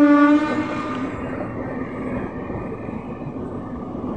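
Horn of a suburban electric local train, ending about half a second in, followed by the steady noise of the coaches rolling past.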